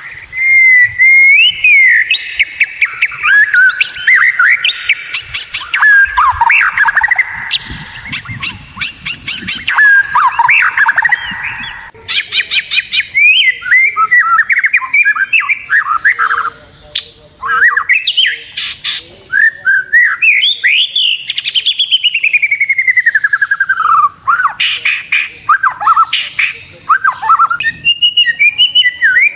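White-rumped shama (murai batu) singing a loud, varied song of whistled notes that glide up and down, mixed with fast runs of repeated notes; the sound changes abruptly about twelve seconds in.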